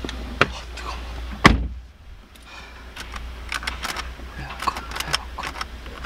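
Car door pulled shut with a solid thud about a second and a half in, after which the outside noise drops away. A run of small clicks and rattles follows inside the closed cabin.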